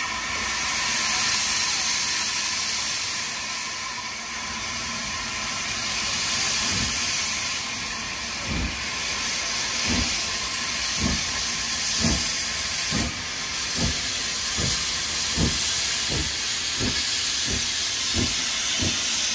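Steam saddle-tank locomotive starting away with a train: steam hissing from the open cylinder drain cocks, and from about seven seconds in the exhaust chuffs begin, slow at first and quickening to about one and a half beats a second.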